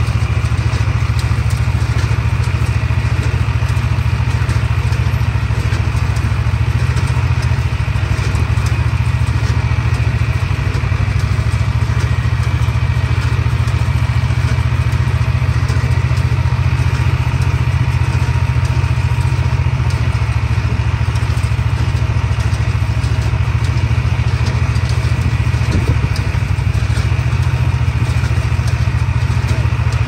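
John Deere tractor engine running steadily under load while powering a small square baler, with the baler's mechanical clatter over the engine drone.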